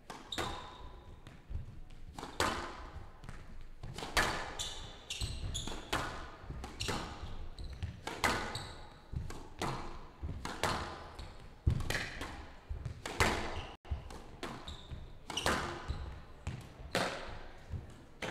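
Squash rally: the ball is struck by racquets and smacks off the court walls in a quick run of sharp hits, roughly one every half second to a second, echoing in the large hall.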